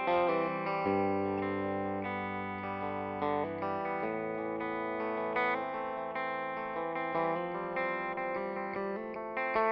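Background music: a guitar playing sustained, effects-laden notes.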